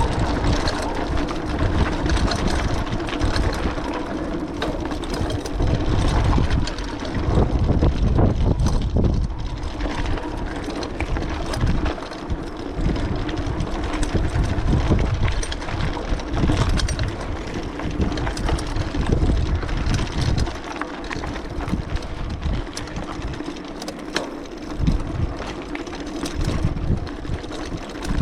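Wind buffeting the microphone in uneven gusts while riding a bicycle, over a steady mechanical hum from the bike's tyres and drivetrain.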